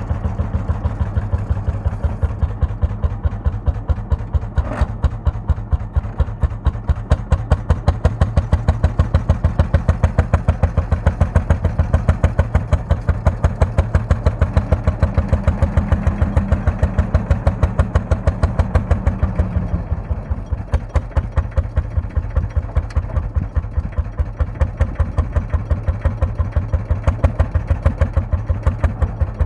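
Lanz Bulldog tractor's single-cylinder two-stroke hot-bulb engine running with a steady, even beat of exhaust pulses as the tractor drives slowly along. A single sharp click comes about five seconds in.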